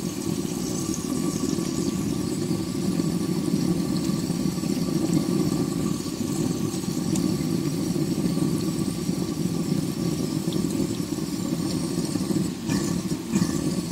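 Jebao DC pump fitted with a 3D-printed needle-wheel skimmer impeller and volute, running at full power with no silencer and drawing air in through its intake tube: a steady churning rush of water and air with faint high tones over it. A few light knocks near the end.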